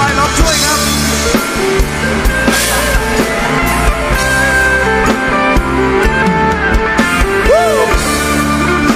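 Live band music in a rock style: drum kit and guitar playing with a steady beat.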